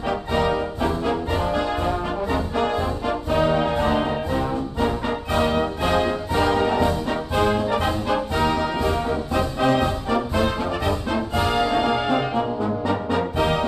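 Background music led by brass (trombones and trumpets) with orchestra, playing sustained chords over a steady beat.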